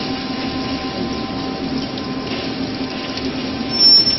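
Aluminium alloy rod rolling mill running: a steady hum with a few even tones over a constant hiss. Near the end there is a brief, louder high-pitched squeal.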